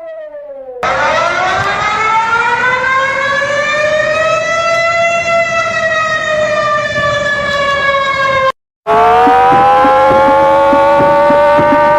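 Outdoor civil-defence warning siren wailing, its pitch rising slowly and then falling. It cuts off abruptly, and after a brief gap another siren starts up and climbs in pitch, with a faint regular ticking underneath.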